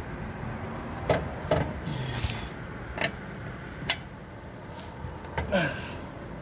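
Wrench clicking and knocking on a car's wheel lug nuts as they are tightened by hand, a handful of sharp separate clicks about a second apart.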